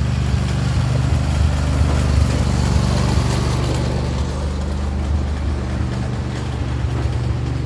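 A motor running steadily: an even, loud, low drone.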